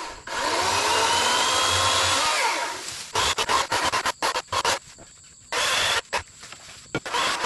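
Greenworks Pro 80V brushless cordless electric chainsaw cutting through a small tree trunk, its motor pitch shifting under load for about three seconds. After that it runs in short, choppy bursts with brief gaps between them.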